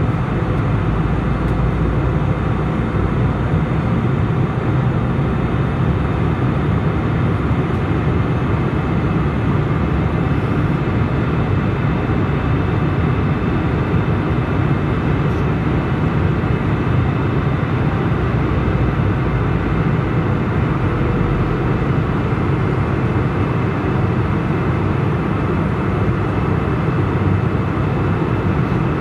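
Steady cabin noise of a jet airliner in flight: the turbofan engines and rushing airflow make an even, deep roar, with a few faint steady tones above it.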